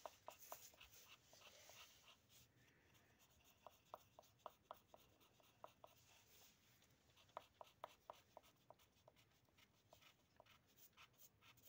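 Faint pencil scratching on paper in short, irregular strokes as someone draws.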